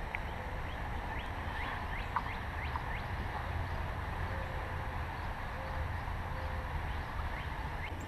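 Pond-side outdoor ambience: a steady low rumble with short high bird chirps scattered through, bunched in the first three seconds and again near the end, and a few faint, short, low waterfowl calls.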